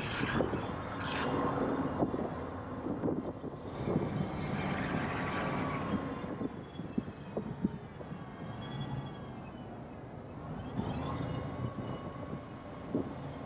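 Car driving on the road: continuous road and traffic noise with scattered clicks and knocks, faint steady tones that drift slowly in pitch, and a falling whine about ten seconds in.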